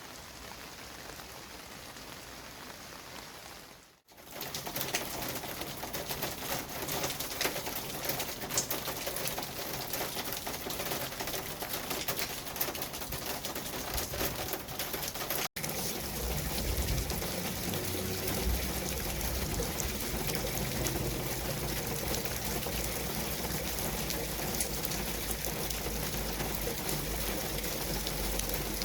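City street ambience: a steady hiss like rain or tyres on wet road. It dips briefly about four seconds in, and after a cut about halfway through, a deeper traffic rumble joins it.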